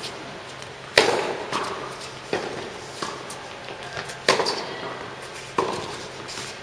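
Tennis rally in an indoor hall: sharp pops of rackets striking the ball and the ball bouncing, each with a short echo. The loudest hits come about a second in and again just after four seconds, with quieter strikes between.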